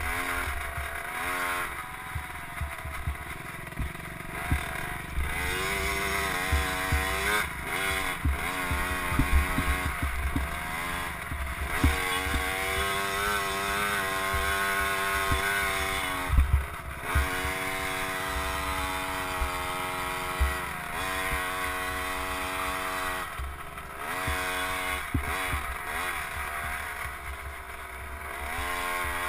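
Dirt bike engine heard from onboard, revving up and down again and again as it is ridden around a motocross track, with wind rumble on the microphone and short knocks from the bumps.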